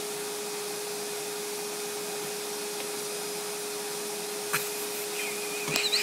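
Vacuum cleaner running steadily with a constant hum. A sharp knock about four and a half seconds in, then a few knocks and brief high squeaks near the end.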